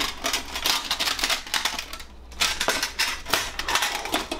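Thin stainless-steel panels and plates of a Captain Stag Kamado Smart Grill B6 folding grill clinking and clattering as they are handled and unfolded, a rapid run of metal clicks with a short lull about two seconds in.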